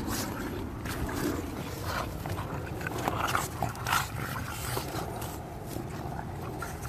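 English bulldog puppy and adult English bulldog play-biting, the puppy mouthing and gnawing on the older dog's face: irregular mouthing noises with short clicks.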